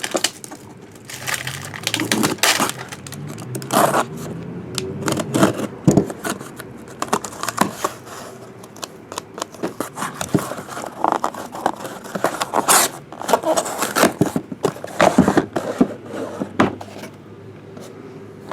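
A cardboard case of trading-card boxes being opened and unpacked by hand: cardboard scraping and tearing, packaging crinkling, and irregular knocks as the boxes are handled.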